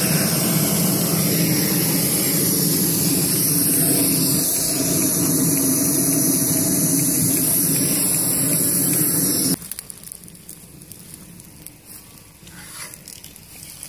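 Long-wand torch running steadily as it lights wood chips in a cut-open steel drum, then shut off abruptly about ten seconds in.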